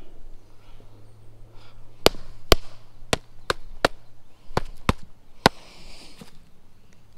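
A pair of sneakers being smacked to knock ants out of them: a run of about eight sharp slaps, starting about two seconds in and ending around five and a half seconds.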